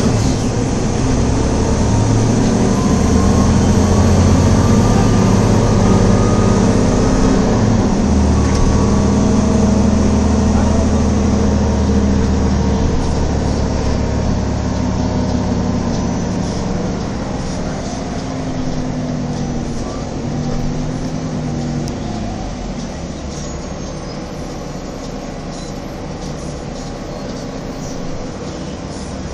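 Cabin noise of a Nova Bus LFS articulated city bus under way: a steady engine drone with road noise. The engine note changes abruptly about eight seconds in, and the sound grows gradually quieter over the second half as the bus slows.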